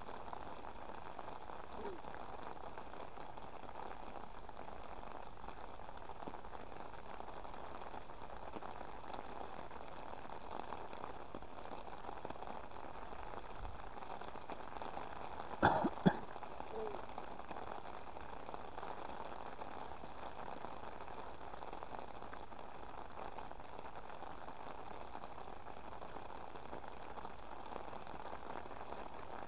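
Steady rain falling. About halfway through, two or three brief sharp knocks stand out above it.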